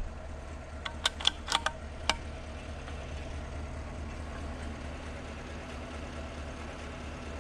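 Pickup truck engine idling steadily, with a quick run of about half a dozen sharp clicks about a second in.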